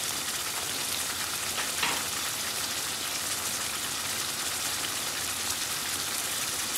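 Chicken and bottle gourd curry sizzling and simmering steadily in a pan.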